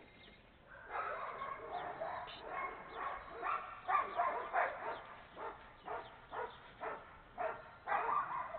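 Dog barking repeatedly, about two barks a second, after a quiet first second.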